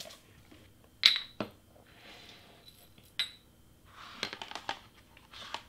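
Clear hard-plastic storage case being moved and opened on a cutting mat: sharp plastic clicks with a short ring, two about a second in and one about three seconds in, then soft sliding and rustling of the case and paper pieces near the end.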